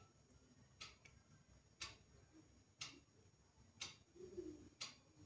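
Faint ticking of a clock, one tick a second, over near silence.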